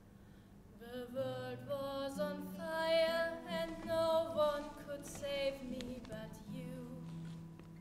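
A woman singing a slow melody in long held notes to a softly played acoustic guitar; the voice comes in about a second in and fades out near the end.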